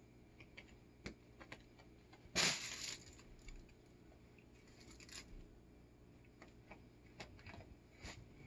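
A cat playing on carpet: scattered light clicks and scuffles, with one brief loud rustling scrape about two and a half seconds in and a softer one about two seconds later.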